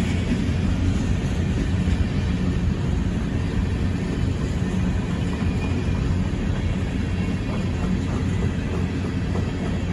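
Empty coal hopper cars of a freight train rolling past: a steady low rumble of steel wheels on rail, with occasional faint clicks.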